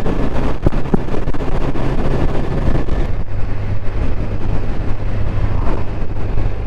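Motorcycle engine running steadily at road speed, heard from the rider's position, with wind rushing over the microphone. The engine note steps down slightly about halfway through.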